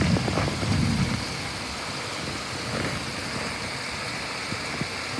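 Steady rain during a thunderstorm, with a low rumble of thunder dying away about a second in.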